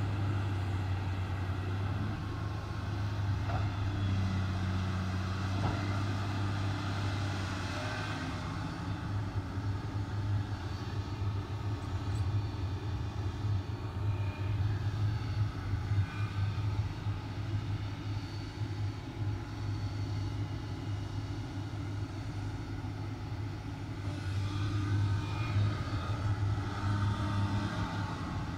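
Komatsu PC300 hydraulic excavator's diesel engine running steadily. It swells louder a few times as the boom and swing are worked.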